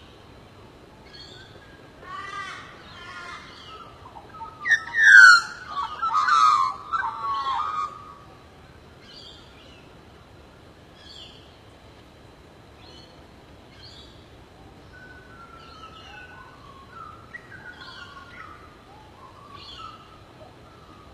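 Birds chirping and calling, with a louder run of sharp calls about five seconds in, then scattered softer chirps.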